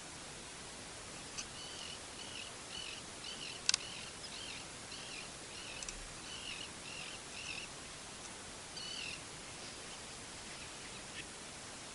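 A bird calling in a run of short, repeated chirping notes over a steady outdoor hiss, with one sharp click partway through.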